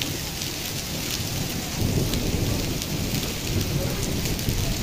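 Heavy rain pouring onto a paved street and garden, a steady hiss, with a low rumble of thunder swelling about two seconds in.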